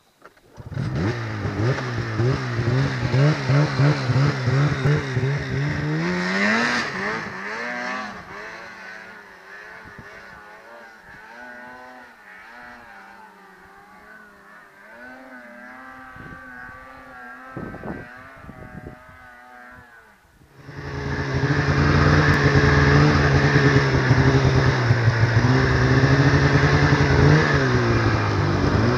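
Snowmobile engine revving up, its pitch rising, then dropping back to a quieter, wavering run for a while before opening up abruptly and running hard at high, steady revs.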